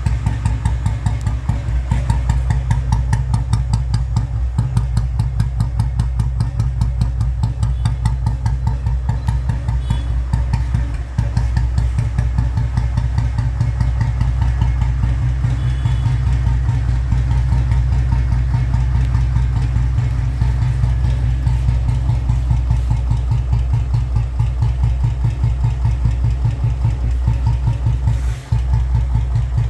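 2000 Royal Enfield Bullet 500's cast-iron single-cylinder engine, with points ignition and a 12.5 kg heavy crank, idling with a steady, even thump.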